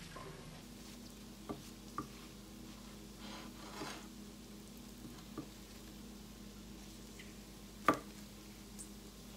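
Food sizzling faintly on a Black & Decker electric griddle over a low steady hum, with a few light utensil clicks, the loudest about eight seconds in, and a short swish around three to four seconds in.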